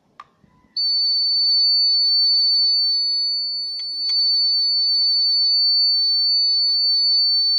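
The buzzer of a battery-powered conductivity tester sounding one steady high-pitched tone, switching on about a second in after a faint click. It sounds because the iron nail electrodes, dipped in a weak electrolyte solution, complete the circuit: the solution conducts.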